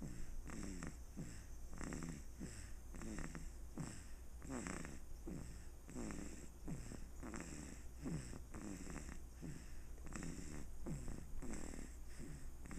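Rhythmic snoring: short, rough snores about two a second, keeping an even pace throughout.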